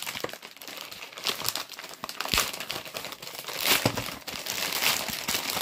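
A mail package of DVDs being torn open and crinkled by hand, in irregular rustling and tearing handfuls, with a single knock about two and a half seconds in.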